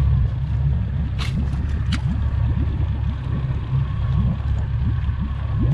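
50 hp outboard motor running steadily, with two sharp clicks about one and two seconds in.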